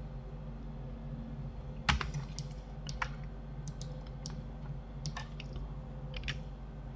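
Computer keyboard keys and mouse buttons clicking in irregular taps, about a dozen in all, the loudest about two seconds in, over a steady low hum.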